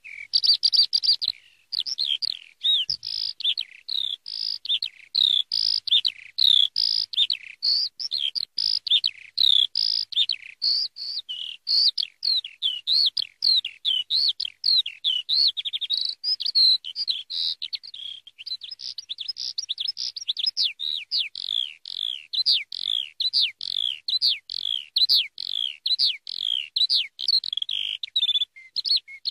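Eurasian skylark singing: a long, unbroken stream of quick, high chirps, trills and slurred warbling notes.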